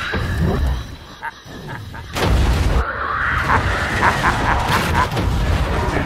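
Explosions: a heavy blast at the start and a second one about two seconds in, each with a deep rumble, followed by a long stretch of fire and debris crackling.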